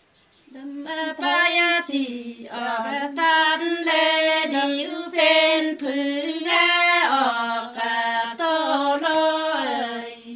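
A woman singing unaccompanied in the Nùng folk call-and-response style (hát đối đáp): one voice in long held notes with slides and wavers between them, starting about half a second in.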